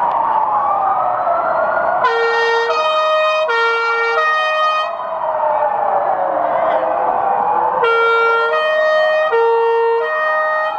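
Several ambulance sirens sounding together, their wails rising and falling over one another. Twice a two-tone siren joins in, switching back and forth between two pitches for a few seconds each time.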